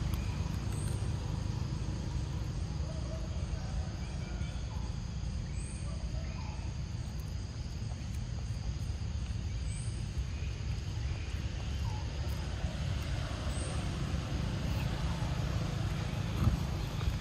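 Outdoor ambience: a steady low rumble with a short, high rising chirp repeating about every four seconds, a few faint calls, and one sharp knock near the end.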